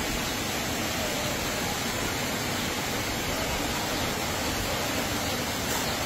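Heavy rain pouring down, a steady, even hiss of rainfall.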